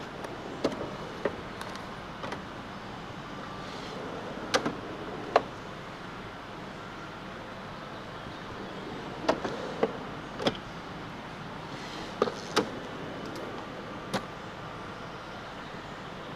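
Tool box drawers sliding open and shut, with about a dozen sharp metal clacks scattered through, over a steady background noise.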